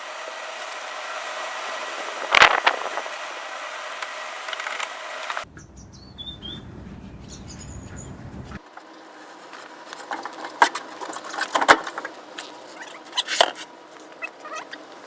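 Metal tools and car parts clinking and knocking by hand, a few sharp knocks among lighter rattles and clicks, with the background changing abruptly twice.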